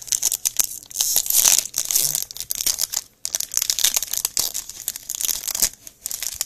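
Trading card pack wrapper crinkling and tearing as it is opened by hand. The crinkling comes in two long spells with a short lull about three seconds in.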